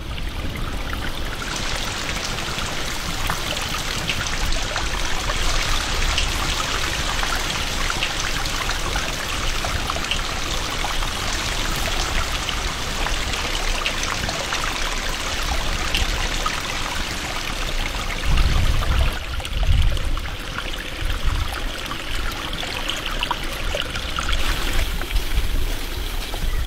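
Breaded chicken skewers deep-frying in a pot of hot oil, a steady dense sizzle full of fine crackling pops. A few low thuds come about two-thirds of the way through.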